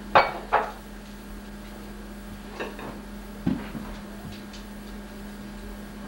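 A few short knocks and clatters, like hands and small things bumping on a high-chair tray: two sharp ones close together at the start, then lighter ones and a duller thud around the middle. A steady low hum runs underneath.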